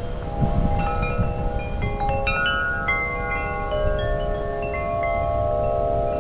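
Wind chimes ringing, several tones struck at irregular moments and ringing on, with a busier cluster of strikes about two seconds in.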